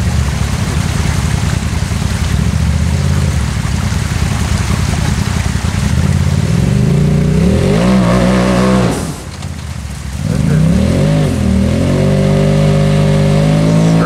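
Side-by-side UTV engine revving hard on a steep hill climb. The revs waver and drop off sharply about nine seconds in, then climb back and hold steady.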